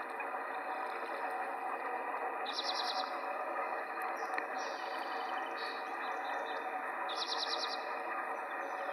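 Small birds calling over a steady background hiss, with a rapid high trill about two and a half seconds in and again about seven seconds in, and scattered chirps between them.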